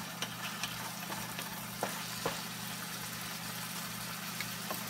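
Ground bison frying in a skillet, a steady sizzle, with a few sharp clicks of a wooden spatula stirring against the pan and a low steady hum underneath.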